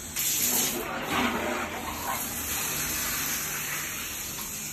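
Toilet flushing: a sudden gush of water into the bowl, easing into a steadier run of water.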